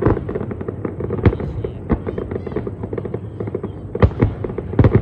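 Aerial fireworks shells bursting: a dense, continuous crackle of pops with louder booms about a second in, near two seconds, and twice near the end.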